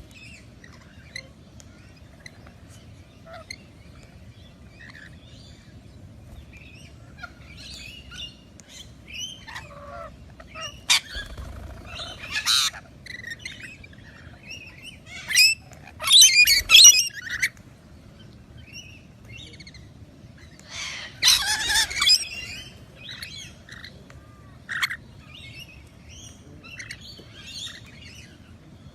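Parrots chirping continually, broken by several loud, harsh squawks, bunched in three flurries: around a third of the way in, in the middle, and about three quarters of the way through.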